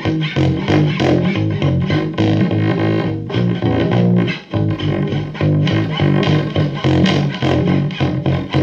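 Guitar-led instrumental music with bass guitar, played rhythmically with effects and some distortion; it drops out briefly about four and a half seconds in.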